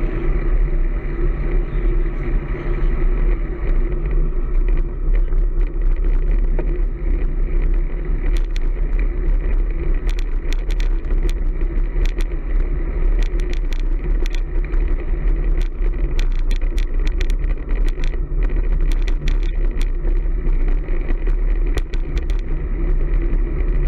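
Road-bike riding noise picked up on the rider's camera microphone: a steady low rumble of wind and road, with scattered sharp clicks and rattles.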